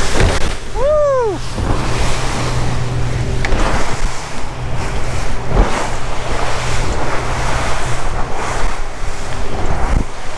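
Motorboat running fast through rough, choppy water: wind buffeting the microphone and rushing spray over the engine's steady low hum, with the hull slamming on waves a few times. A short rising-and-falling whoop sounds about a second in.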